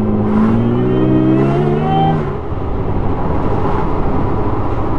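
Supercharged Toyota 1GR-FE V6 accelerating hard, its revs climbing with a high whine riding on top for about two seconds before dropping away suddenly, then running on steadily with road noise.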